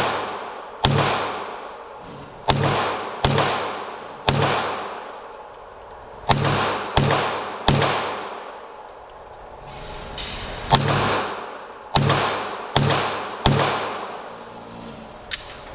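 Sig Sauer P320 RX Compact 9mm pistol fired in slow, aimed single shots, about a dozen at uneven intervals of roughly a second or more, while the red dot is sighted in. Each shot has a long echoing tail from the enclosed indoor range.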